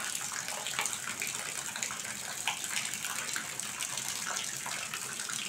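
Heavy rain falling steadily, a constant hiss with close drops spattering, and water running off the roof edge.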